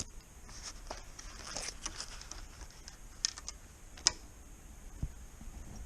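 Scattered light clicks and taps of something being handled, with two sharper clicks about three and four seconds in and a soft thump near the end.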